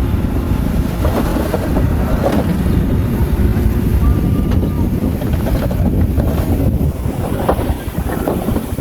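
Bulldozer's diesel engine running steadily with a heavy low rumble, with a few short metallic clanks along the way.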